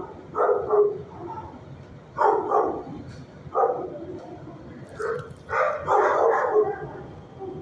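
Dogs barking in a shelter kennel, in short runs of barks every second or two, with a longer run about five and a half seconds in.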